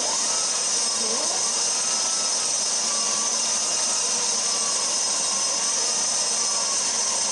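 Krups stand mixer's motor switching on suddenly and running steadily, turning its dough hook through dry flour, salt and yeast, with a high whine that wavers slightly in pitch.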